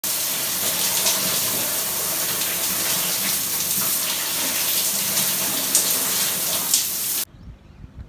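Shower water spraying steadily onto a person and a tiled floor, an even hiss with a few faint splashes, cutting off suddenly near the end.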